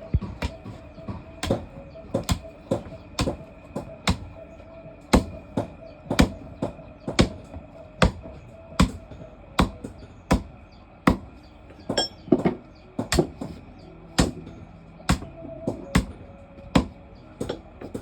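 Repeated sharp metal strikes, about one and a half a second at an uneven pace, as rolled iron bar is struck straight.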